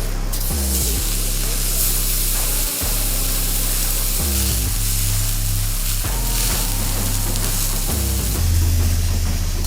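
Food sizzling in a frying pan, a steady hiss, under background music with a bass line.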